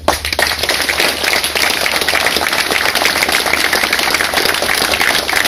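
A large crowd applauding: many hands clapping at once.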